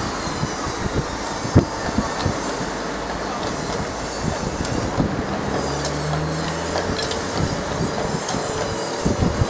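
Horse tram rolling along its rails, its wheels clacking and rumbling over the track, with the horse's hooves clopping irregularly on the wet road. A passing car's engine hums briefly in the middle.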